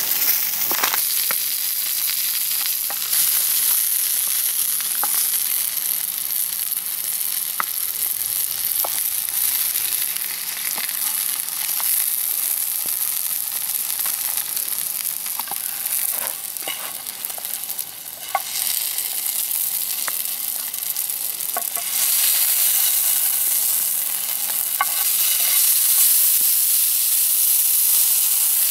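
Food frying in a pan over a campfire: a steady sizzle with scattered small pops and ticks, a little louder near the end.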